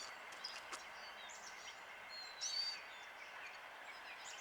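Small birds giving several short, high chirps, the loudest about two and a half seconds in, over a faint steady outdoor hiss.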